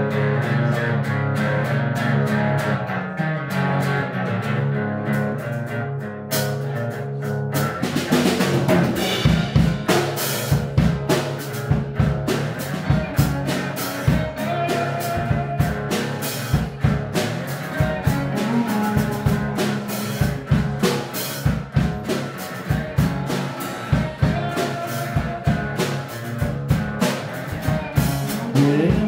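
A small live band playing an instrumental passage: held, steady chords at first, then a drum kit comes in about eight seconds in with a steady beat, under strummed acoustic guitar.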